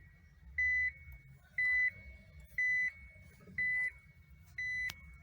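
Nissan Leaf's reverse-gear warning chime inside the cabin: a single-pitched electronic beep repeating steadily about once a second, five beeps in all, signalling that the car is in reverse.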